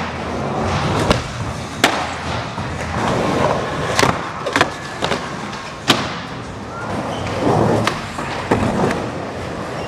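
Skateboard wheels rolling over the ramps of an indoor skatepark, broken by several sharp clacks of boards popping and landing.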